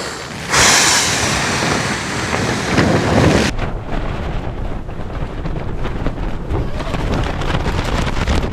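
Strong gusting mountain wind buffeting the microphone: a loud, hissing gust for the first few seconds cuts off suddenly, leaving a steady low rumble.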